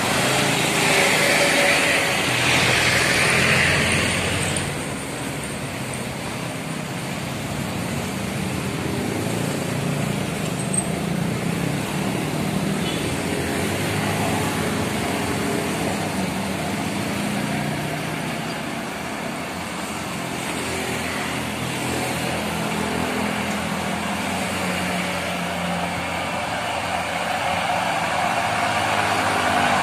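Road traffic on a steep climb: diesel trucks and motorcycles passing close, the trucks' engines labouring as they crawl uphill. The loudest pass comes in the first few seconds, and another truck's engine grows louder near the end.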